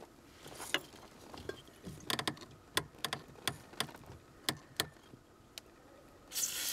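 Irregular sharp clicks and taps, then near the end a short hiss of WD-40 aerosol spray being applied to the Lada Granta's squeaking clutch pedal return spring to lubricate it.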